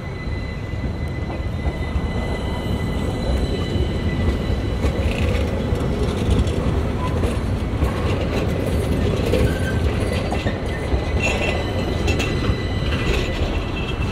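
Articulated city tram running past close by on a curve: a steady rumble of steel wheels on the rails, with a faint high wheel squeal.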